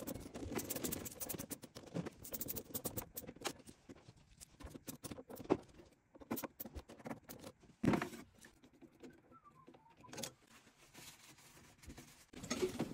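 Hand tool working screws on a combi boiler: fast runs of ratchet clicks, mostly in the first few seconds, among scattered small clicks and clatters. A louder knock comes about eight seconds in and again near the end.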